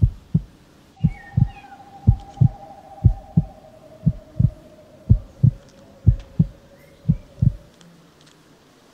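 Heartbeat sound effect: slow double thumps, about one 'lub-dub' a second, eight in a row, stopping near the end, with a faint held note above them that slides slightly lower.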